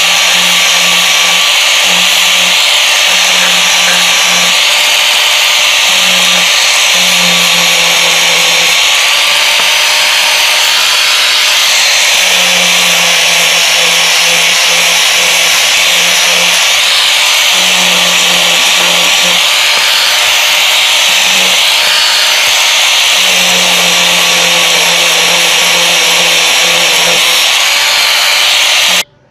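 Electric grinder fitted with a sanding disc, running at speed against a wooden knife handle: a steady high whine whose pitch dips briefly several times as the disc is pressed into the wood. It cuts off abruptly near the end.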